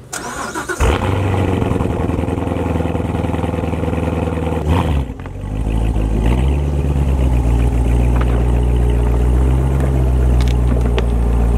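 Chevrolet Corvette C7 Z06's supercharged 6.2-litre V8 starting with a sudden loud flare about a second in, then running low and steady as the car rolls forward at low speed.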